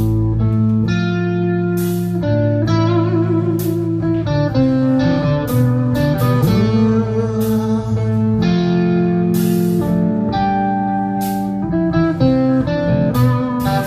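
Rock band playing: electric guitar leads the melody with held, wavering notes over steady chords, with sharp hits at irregular intervals.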